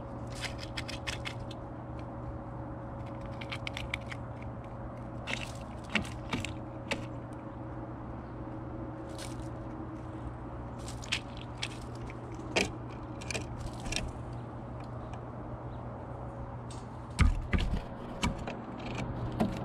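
A scrub-jay working at seed and peanuts on a platform feeder: a scatter of short sharp clicks, taps and scrapes from its beak and feet on the seed and shells, over a steady low hum. A heavier thump comes about seventeen seconds in.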